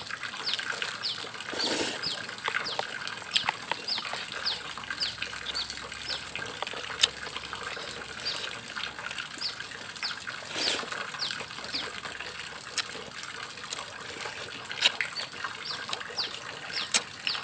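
Repeated short, high downward-sweeping chirps, about two a second, over a steady thin high hum, with a plastic food bag crinkling and a spoon clicking as the bag is eaten from.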